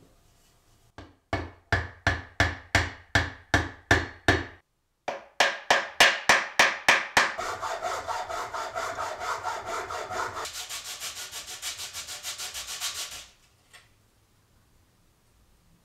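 Hacksaw sawing a small block of wood in quick back-and-forth strokes, about three a second, with a short break a few seconds in. The strokes then run together into a denser rasp and stop a couple of seconds before the end.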